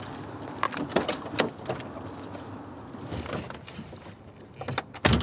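Footsteps and small knocks around a car, then a car door shutting with one loud thud near the end.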